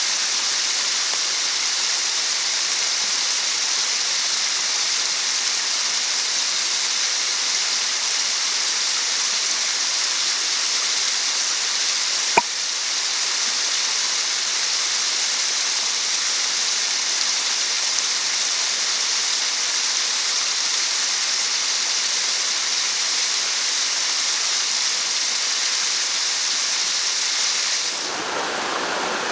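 Mountain headwater stream running over rocks: a steady, even hiss of water with one sharp click about twelve seconds in. Near the end it gives way to a lower, fuller water sound.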